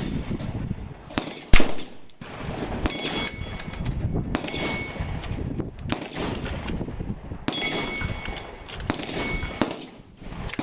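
A single sharp .22 LR rifle shot from a Savage Mark II bolt-action, about a second and a half in, is the loudest sound. Fainter sharp cracks and clicks follow through the rest, with brief metallic ringing tones twice, over a steady low rumble.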